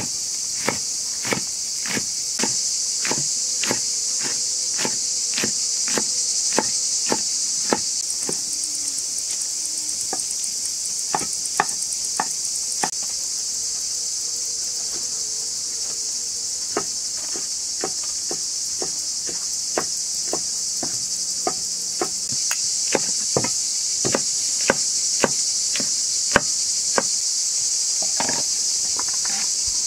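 Cleaver chopping chili peppers on a wooden cutting board in steady strokes, about two a second, with a short lull around the middle. Behind it runs a constant high-pitched chorus of insects.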